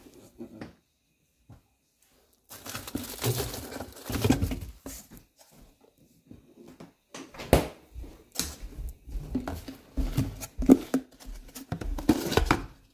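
Kitchen handling noises: rustling and knocking as containers are moved about in an open refrigerator, then a string of sharp knocks and clicks as things are handled and set down on the counter.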